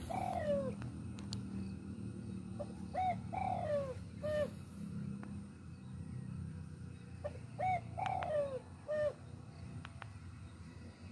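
A dove cooing, a repeated phrase of a few short notes and one longer falling coo, heard three times about four to five seconds apart.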